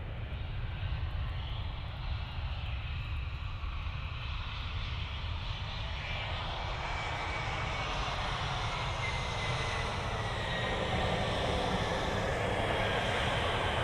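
Jet airliner engines, a steady low rumble with a thin high whine that comes in about halfway and slowly drops in pitch, the whole sound growing louder toward the end.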